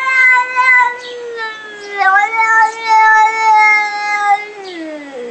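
A domestic cat giving two long, drawn-out meows in a row, the second sliding down in pitch as it ends, like a cat 'talking' at length.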